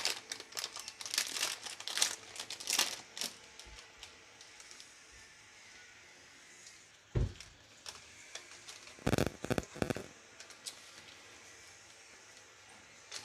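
Crinkling and rustling of something being handled for the first few seconds. Then a single dull thump about seven seconds in, and a short cluster of knocks around nine seconds in.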